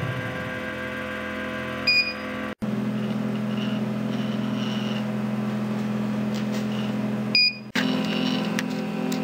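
Stepper-motor drive of a hobby CNC hot-wire foam cutter humming steadily as it slowly traverses the wire through the foam during a cut, with short high beeps about two seconds in and again near seven and a half seconds.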